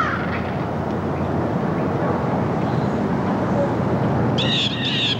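Steady noise of a car driving slowly, with crows cawing outside once at the very start and again near the end.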